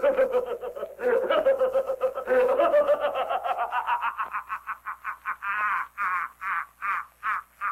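A cartoon character's voice laughing hard, a belly laugh in rapid pulses that turns higher-pitched and more spaced out about halfway through.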